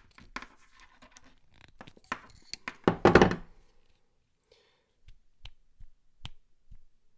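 A hand crimping tool and a wire splice being handled: scattered clicks and knocks, with one loud half-second crunch about three seconds in, then a few single ticks near the end.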